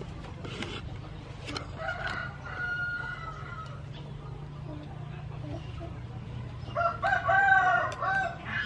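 A rooster crows once, loudly, near the end, in one long call that bends in pitch. A fainter call comes about two seconds in.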